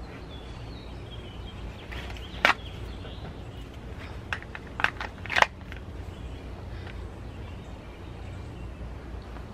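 Sharp clicks of a SIG P365 pistol being drawn from and pushed back into a Vedder LightTuck Kydex holster: one loud click about two and a half seconds in, then three quicker clicks between about four and five and a half seconds in.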